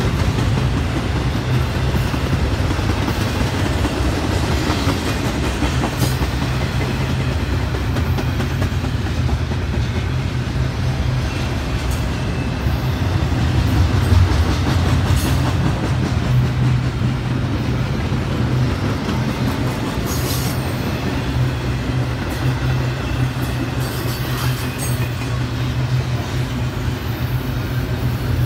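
Double-stack intermodal well cars rolling past: a steady, heavy rumble of steel wheels on rail, with a few sharp clicks from wheels passing over the rail.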